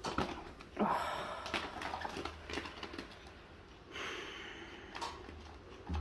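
A cat's claws catching and scrabbling on a fabric curtain as it climbs, the curtain rustling in short scratchy spells about a second in and again about four seconds in.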